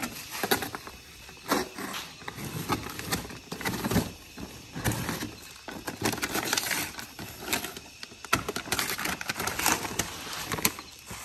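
Utility knife slitting the tape and cardboard on top of a firework cake's box, then the cardboard flaps and paper being pulled open: a run of irregular scrapes, crinkles and small knocks.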